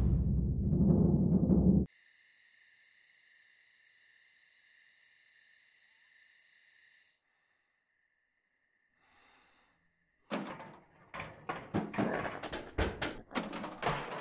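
A booming timpani sting cuts off about two seconds in. Faint, evenly pulsing high chirping of night insects follows for about five seconds, then near silence. From about ten seconds in comes a loud, irregular clatter of rapid knocks and scrabbling: a possum running and scratching across a tin roof.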